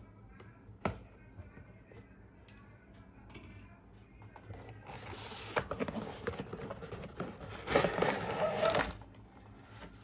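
Cardboard toy box being opened: a utility knife clicks sharply once against the box seal about a second in, then cardboard scrapes and rustles as the inner tray is slid out of the box, loudest near the end. Soft background music plays throughout.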